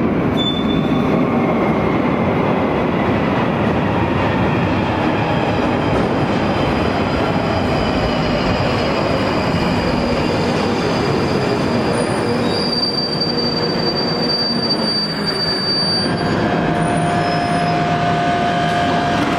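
London Underground 1995 Stock tube train running into a tunnel platform, a loud steady rumble as it slows. A high wheel squeal sounds for a few seconds about two-thirds of the way in, and a steady tone follows as the train comes to a stand.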